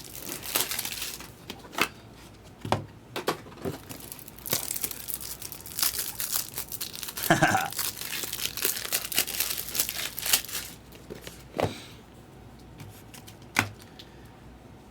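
Foil trading-card pack wrappers being torn and crinkled while cards are handled, with sharp clicks and taps among the rustling. It goes quieter about eleven seconds in, leaving a few isolated taps.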